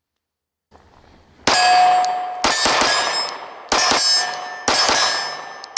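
Glock 26 Gen 5 9mm pistol fired four times, about a second apart. Each shot is followed by a steel target ringing with a clear tone that fades.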